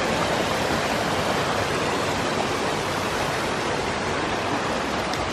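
Small rocky stream rushing over stones and little cascades, a steady, even rush of water.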